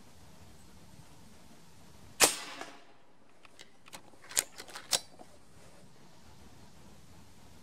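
Reximex Throne PCP air rifle firing a 6.35 mm (.25) 42-grain hollow-point pellet: one sharp crack with a short tail. About a second later the side lever is cycled to load the next pellet, a run of quick metallic clicks, two of them louder.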